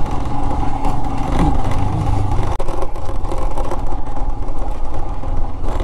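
Royal Enfield Himalayan's 411 cc single-cylinder engine running steadily while the motorcycle is ridden along a rough mountain road, its low note easing slightly about two and a half seconds in.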